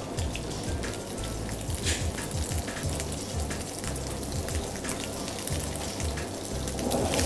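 Small peeled shrimp sizzling in hot sunflower oil in a frying pan, a steady hiss full of quick crackles and pops over a low rumble. The shrimp are being sautéed until they take on a light colour.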